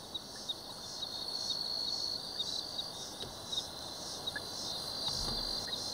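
Night crickets chirping in a steady rhythm, about three pulses a second, over a thin continuous high trill.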